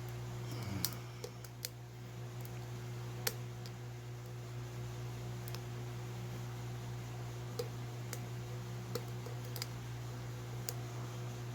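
Scattered, irregular small metal clicks of a lock pick and tension wrench working the pins inside a Ruko lock, over a steady low hum.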